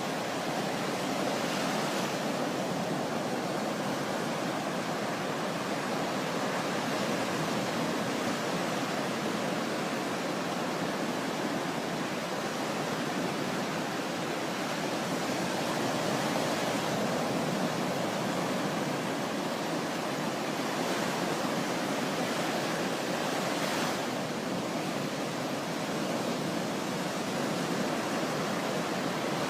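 Sea waves washing on the shore: a steady rushing hiss of surf that swells and eases slightly.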